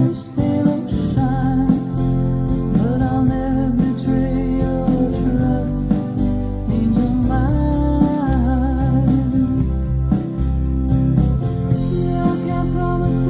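A song with a singing voice and guitar over a steady bass, played back through a Technics SU-Z11 early-1980s integrated amplifier as a listening test.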